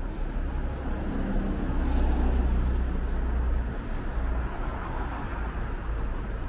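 City street traffic: a motor vehicle's engine rumble swells as it passes close by, loudest about two seconds in, then eases off under steady street noise.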